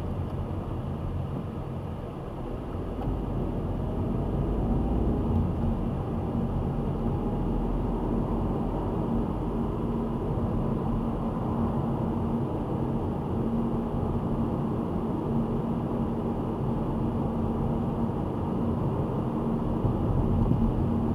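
Road and engine noise inside a moving car, picked up by a windscreen-mounted dash cam's microphone: a steady low rumble that grows a little louder a few seconds in as the car picks up speed, with a steady hum under it in the later part.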